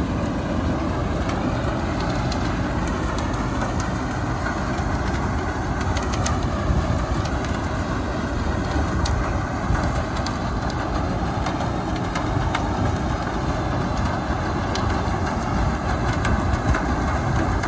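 Tractor-driven thresher running steadily at full speed, driven by a Kubota tractor engine; its drum and blower make a continuous, dense mechanical din. Scattered faint ticks from crop passing through the machine can be heard over it.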